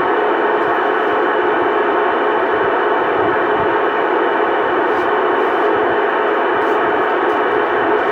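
CB radio speaker putting out steady static with faint steady tones through it, a carrier keyed down on the channel with no voice on it.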